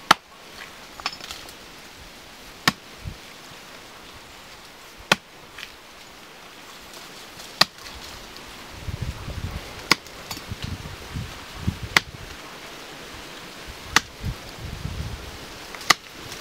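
A hand-held blade chopping into a standing tree trunk: eight sharp strikes of steel biting into wood, one about every two to two and a half seconds. A low rumbling noise joins in during the second half.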